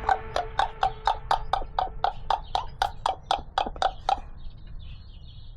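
A rapid, very even run of sharp hollow clicks, about four a second, like hoof clip-clops; they stop about four seconds in.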